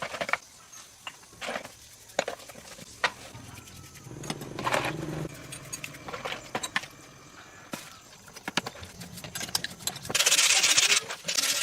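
Hand work on metal engine parts: scattered clicks and knocks of parts and tools being handled, then, near the end, a loud scraping or rubbing noise in strokes, like filing or scrubbing metal.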